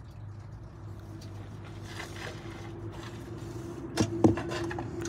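A steady engine-like drone that grows a little louder, with two sharp knocks in quick succession about four seconds in.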